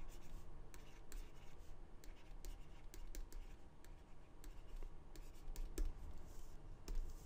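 Faint, irregular taps and scratches of a stylus writing by hand on a tablet.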